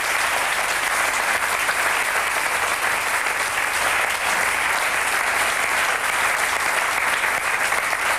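Studio audience applauding, a steady even clapping throughout.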